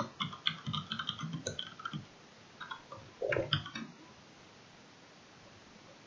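Typing on a computer keyboard: a quick run of key clicks for about two seconds, then a few more keystrokes a second later.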